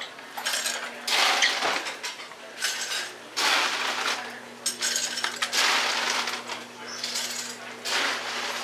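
Dishes, glasses and cutlery clattering and clinking in repeated bursts, over a steady low hum.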